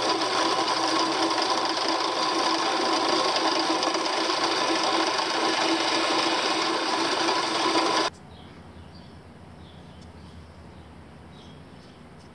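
Drill press running steadily, its bit boring a sight hole through Baltic birch plywood for a slingshot. It cuts off abruptly about eight seconds in, leaving a much quieter background with faint high chirps.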